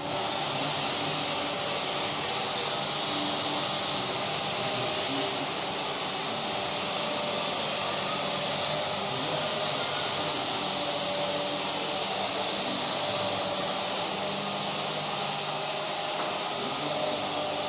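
A steady, even hiss with faint low tones beneath it.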